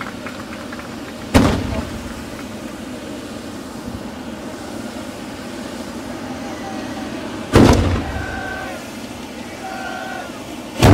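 Loud bangs of hand-held bamboo tube fireworks (tezutsu hanabi): the blow-out bang (hane) that ends each tube's burn. Three sharp booms, the first about a second and a half in, the second some six seconds later and the third right at the end, over a steady noisy background.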